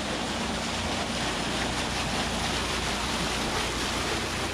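Steady rush of churning, splashing water in a concrete holding pond crowded with chinook salmon.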